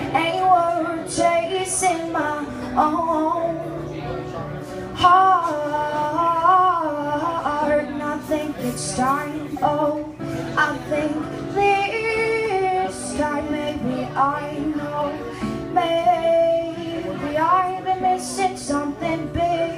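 A woman singing solo with her own acoustic guitar accompaniment. Her voice carries a melody with wavering held notes over strummed chords.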